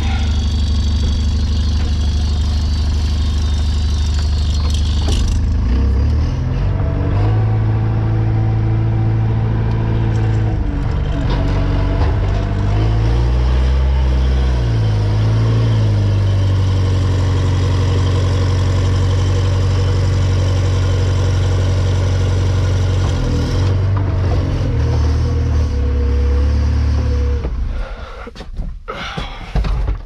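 Farm machinery engine running hard under load, its revs dipping and rising several times, with a hiss over it for the first few seconds; it falls away near the end.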